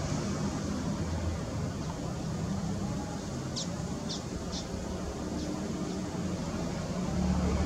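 Airbus A320-214's CFM56 jet engines running at low taxi power, a steady low hum with a few constant low tones, growing louder near the end as the airliner turns toward the listener. A bird chirps three or four times around the middle.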